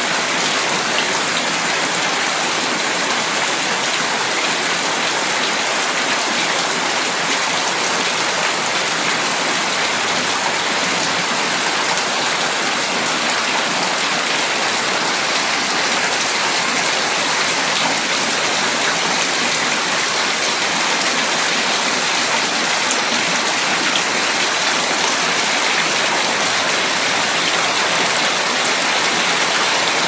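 Heavy rain falling steadily, with water streaming off the edge of a corrugated roof and splashing onto the ground below.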